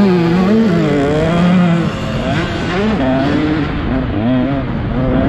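Motocross dirt bike engine racing, its pitch rising and falling again and again as the throttle is opened and shut, over wind and track noise.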